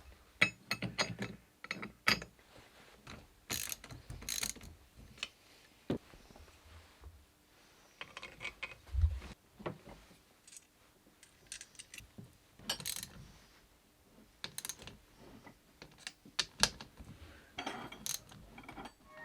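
Hand work on metal parts: irregular clicks, knocks and short scraping rasps, some in quick ratchet-like runs, over a faint steady hum.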